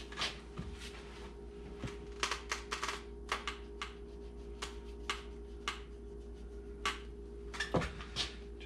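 Skinning knife trimming strips of flesh off a coyote hide back to the ear cartilage: a run of irregular sharp snicks and clicks over a steady low hum.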